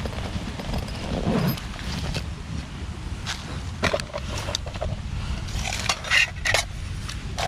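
Rustling and scraping of a Fjällräven G-1000 rucksack being opened and gear pulled out of it, with a few short knocks near the end as an MSR Titan titanium kettle and a gas canister are set down on dry leaves.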